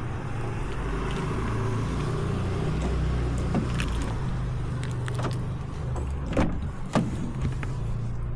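Honda Civic sedan's driver door being unlocked and opened: a few sharp clicks and clunks from the lock and door latch, the loudest two about six and a half and seven seconds in, over a steady low hum.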